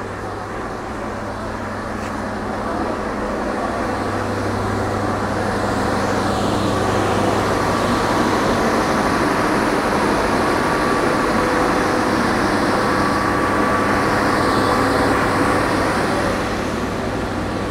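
A stationary passenger train's diesel engine running steadily, a low, even hum that grows louder a few seconds in and eases off near the end.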